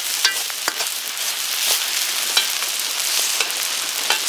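Deer-meat fried rice sizzling in a hot pan as it is stir-fried, with a steady hiss and several short, sharp knocks of stirring against the pan.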